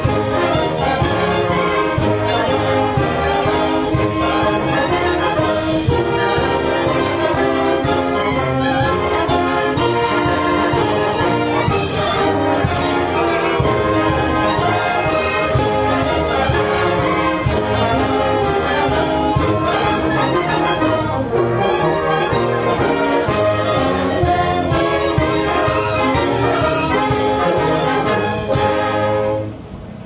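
Brass band playing a march: trumpets and trombones over a steady drum beat, the music ending in the last second or so.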